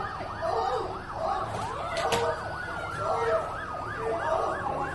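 Several emergency-vehicle sirens sounding at once: one in a fast yelp of about four sweeps a second, another rising in pitch nearly two seconds in and then falling slowly. A short sharp click a little past two seconds in.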